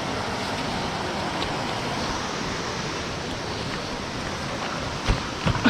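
Mountain stream rushing steadily. A few short knocks near the end.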